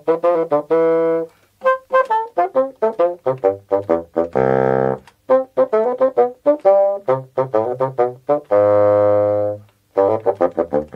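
Closing theme music played on wind instruments: a run of quick, detached notes broken by two held chords.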